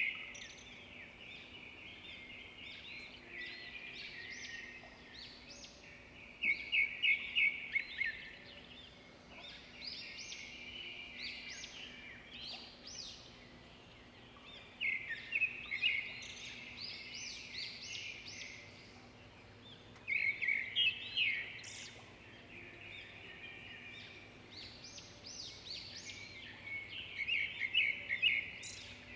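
Birds chirping: high, rapid chirps that swell into loud bursts of quick notes about every six seconds, with quieter chirping between, over a faint steady hum.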